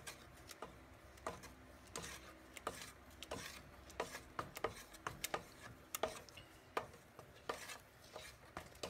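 Wooden spoon stirring thick barbecue sauce in a non-stick pot, scraping and knocking faintly against the pot's sides and bottom in irregular soft clicks, about one or two a second.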